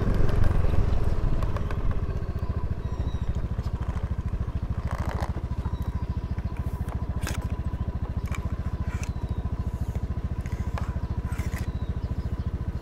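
Motor scooter's small engine running with a fast, even low pulse. A louder rush drops away about two seconds in, and a few light clicks come through over the engine.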